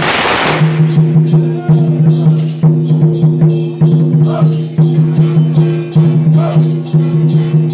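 Traditional temple procession music: a sustained, steady note over rapid drum and percussion beats, opening with a loud burst of noise lasting about half a second.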